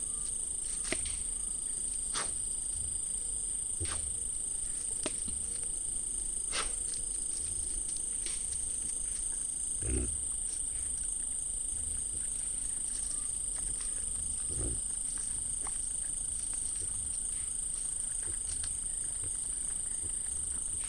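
Night insects, crickets, trilling steadily at a high pitch, with scattered sharp clicks and two soft low thumps, about ten and fifteen seconds in.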